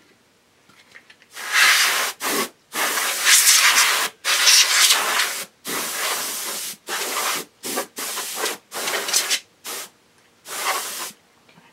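Can of compressed air duster blowing through its straw in about ten short bursts of hiss, some up to a second long with brief gaps between them, clearing dust out of a computer's power supply.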